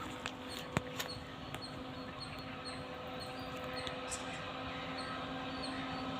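Approaching WAP-4 electric locomotive, still some way off, giving a steady low hum that grows slowly louder, with a few sharp clicks in the first couple of seconds. Faint high chirps repeat regularly throughout.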